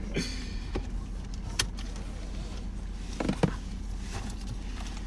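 Steady low hum of a car cabin while driving, with a few light clicks and a brief low sound about three seconds in.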